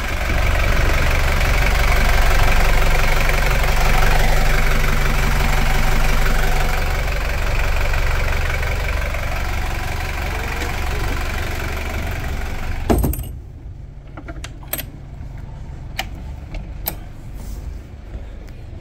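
Volvo Penta marine diesel engine idling steadily, heard through an open engine-room hatch. About two-thirds of the way in it cuts away with a thump, leaving a much quieter background with a few light clicks.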